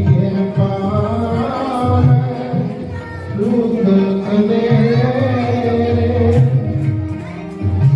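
A song with singing over a full, sustained bass line.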